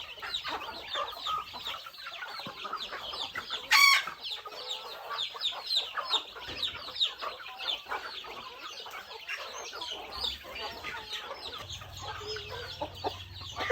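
A flock of farm chickens calling continually, many short high calls overlapping, with one loud, sharp squawk a little before four seconds in.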